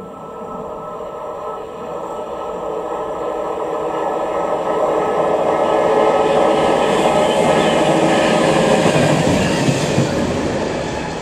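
DB class 725 diesel maintenance railcar approaching and passing close by. Its engine and wheels on the rails grow steadily louder, peaking as it goes past with some clatter from the wheels.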